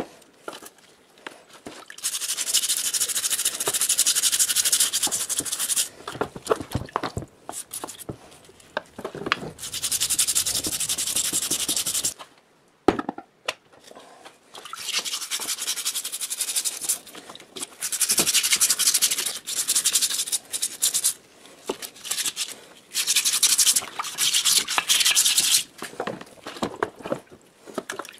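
Hand wire brush scrubbing rusty, wet air-compressor parts. It comes in spells of scratching a few seconds long with short pauses between them, and there is one sharp knock about halfway through.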